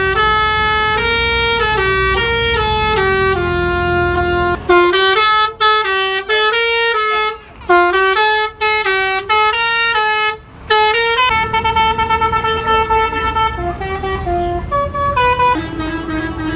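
Bus 'telolet' horn, a multi-tone musical air horn, playing quick tunes of stepping notes over the low rumble of the bus engine. In the middle the notes come as short separate blasts with gaps between them. Near the end one note pulses rapidly.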